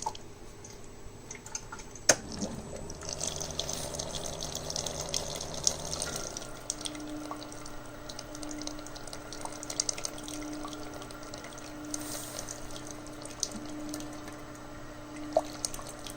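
Single-serve coffee maker brewing a 12-ounce batch of white vinegar to descale it: a click about two seconds in, then a low pump hum, and from about six seconds a hum pulsing about once a second as the hot liquid streams and drips into the cup.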